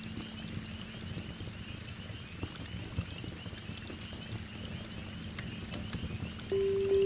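Steady rain with scattered sharp crackles from a fireplace. About six and a half seconds in, a loud sustained singing-bowl tone starts ringing.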